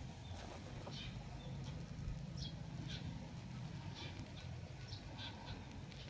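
Faint outdoor background: a steady low rumble, like wind on the microphone, with short high chirps scattered irregularly through it, several a second.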